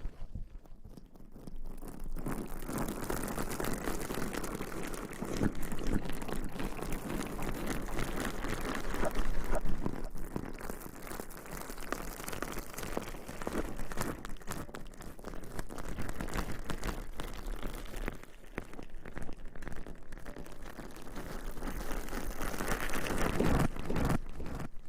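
Close-miked ASMR rustling, a dense crackling hiss that swells and fades in waves, dipping briefly at the start.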